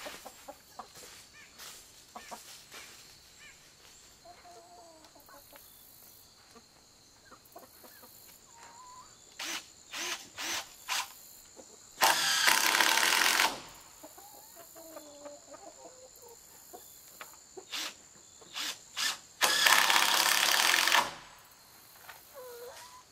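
Cordless drill driving screws into a board in two long bursts of about a second and a half each, one about twelve seconds in and one about twenty seconds in, with a few short clicks before each. Chickens cluck softly in between.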